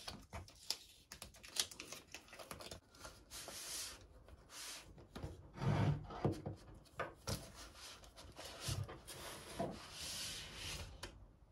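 Cardboard and paper being handled as a taped cardboard package of prints is opened: irregular rubbing and scraping strokes with light knocks.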